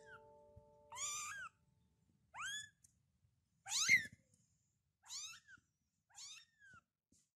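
A 15-day-old kitten meowing repeatedly: five short, high-pitched mews about a second apart, each rising in pitch, the loudest near the middle.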